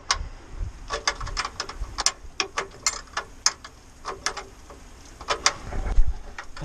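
Sharp metallic clicks and taps from a hand tool working on metal parts under a truck's front end, coming in short irregular runs of a few clicks each.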